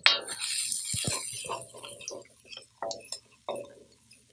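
Garlic, ginger and chopped peppers sizzling in a hot, oiled seasoned wok, with a wooden spatula scraping and tapping against the pan as they are stirred. The sizzle starts suddenly and fades after about two seconds, leaving scattered scrapes and taps.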